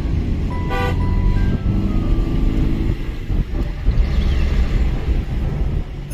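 A car driving with its windows open: steady low rumble of engine, tyres and air, with background music playing over it.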